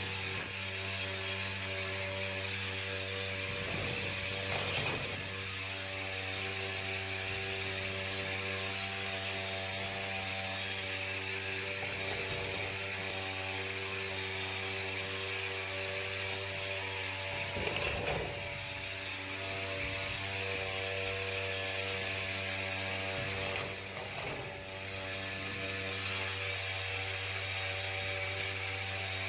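HVAC equipment running: a steady electrical hum with a rush of air, broken by three brief knocks about five, eighteen and twenty-four seconds in.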